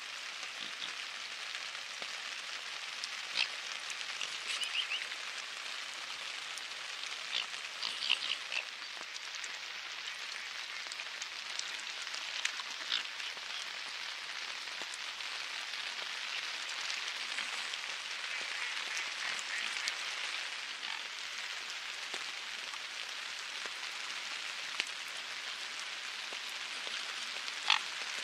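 Steady patter of rain falling on lake water, with short splashy clicks scattered through it, the loudest about eight seconds in and another near the end.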